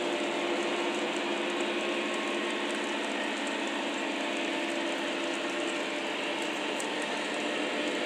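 O scale three-rail model freight train rolling past, its cars' wheels making a steady clattering rumble on the track.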